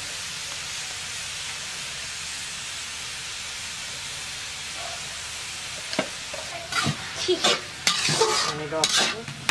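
Sliced onions sizzling steadily in a metal wok. About six seconds in, a metal spatula starts stirring them, scraping against the pan in a run of quick, loud strokes.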